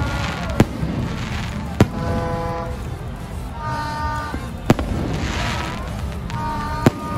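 Fireworks display: aerial shells bursting with four sharp bangs spaced a second or more apart.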